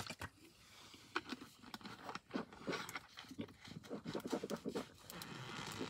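Gulping and swallowing of fizzy Diet Coke drunk from a plastic bottle, with a run of small irregular clicks and mouth noises.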